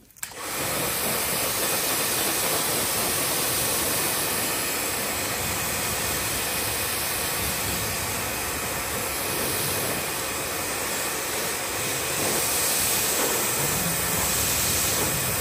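Kärcher Mini electric pressure washer running steadily, its water jet spraying against an aluminium boat hull. It starts a moment in.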